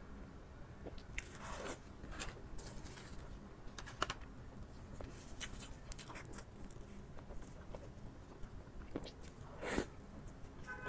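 Close-miked chewing and biting of a soft dessert, with scattered short mouth clicks; a sharper click comes about four seconds in and another near the end.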